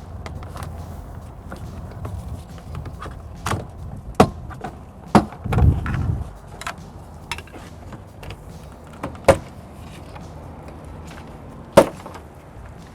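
Plastic push-pin clips of a car door trim panel snapping loose as a plastic trim tool pries them out: several sharp snaps a second or more apart, with handling noise and a duller thump near the middle.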